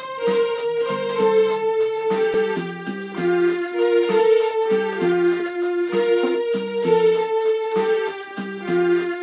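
Casio MA-150 electronic keyboard playing a melody over lower accompaniment notes, the notes changing every half second or so.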